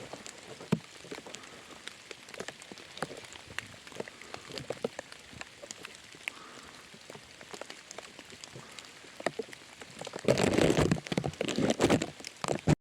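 Rain falling in scattered, separate drops. About ten seconds in, a louder rustling, crunching noise lasts for a couple of seconds.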